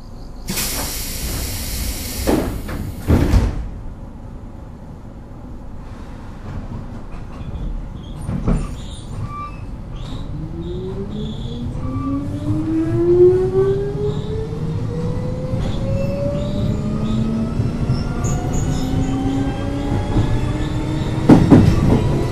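Keio 7000 series field-chopper-controlled electric train heard from inside a car: the doors close with a hiss and two thumps, then after a clunk the train pulls away and the traction motor whine rises steadily in pitch as it accelerates. A pair of loud knocks from the running gear comes near the end.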